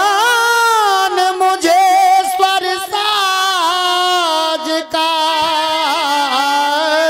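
Rasiya folk music: a high voice singing a long, ornamented melody, holding notes that bend and waver.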